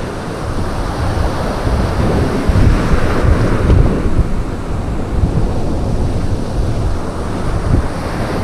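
Strong wind buffeting the microphone over surf breaking on a shingle beach, gustier from about two and a half to four seconds in.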